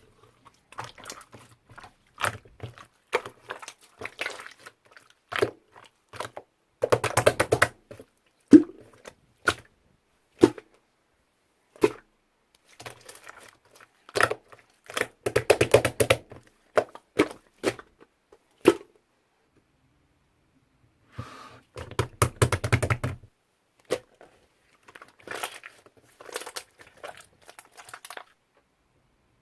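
Slime being worked by hand: sharp clicks and pops of trapped air, with three denser runs of rapid crackling pops and a short pause a little past the middle.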